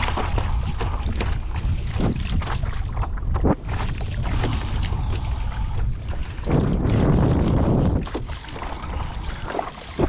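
Wind buffeting the microphone over choppy water splashing against the hull of a Hobie Lynx kayak, with a louder rush of noise about two-thirds of the way through.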